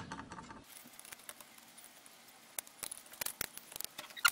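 Light metal clicks and scrapes, bunched into the second half, as a screwdriver pries at a coked-on manifold gasket stuck to an engine cylinder head.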